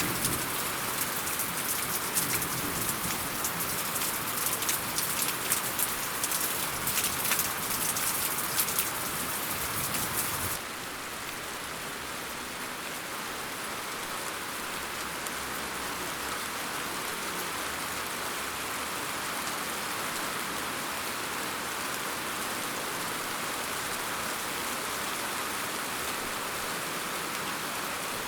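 Steady rainfall. For the first ten seconds or so many individual drops patter sharply and close together, then the sound cuts abruptly to a smoother, even, slightly quieter hiss of rain.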